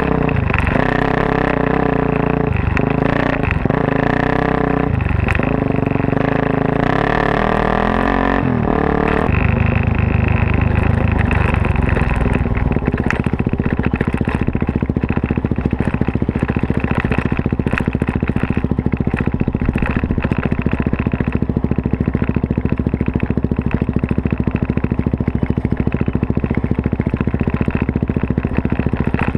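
Single-cylinder four-stroke engine of a Suzuki DR-Z400S dirt bike, big-bored to 440 with a Yoshimura full off-road exhaust, comes in loud all at once. It revs up and drops back several times with short breaks for about the first nine seconds, then runs steadily under load.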